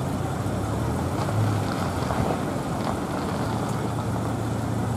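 Steady street background noise carrying a constant low hum from an idling engine.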